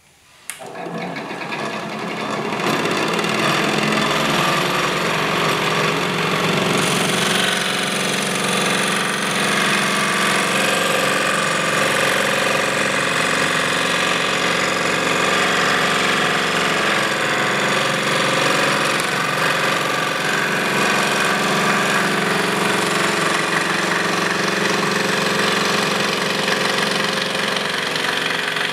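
Delta 16-inch variable-speed scroll saw (40-540C) starting up about half a second in and coming up to speed over the first two or three seconds. It then runs steadily with its reciprocating blade sawing through a piece of black walnut.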